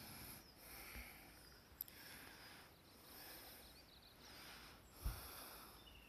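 Near silence: faint outdoor ambience with soft rustles about once a second and a short low thump about five seconds in.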